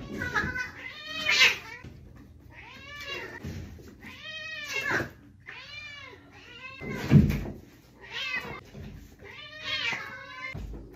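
Several house cats meowing loudly over and over, a call about every second, begging for food from a can held above them. A thump about seven seconds in.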